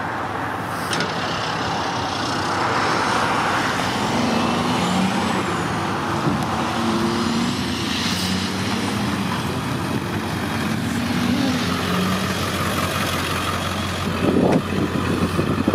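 Road vehicle running at speed, heard from inside the cab: a steady low engine hum under even road and wind noise.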